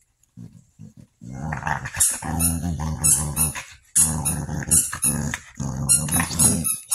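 Pit bull growling while his muzzle is held and rubbed: several long, low, rasping growls back to back, starting about a second in.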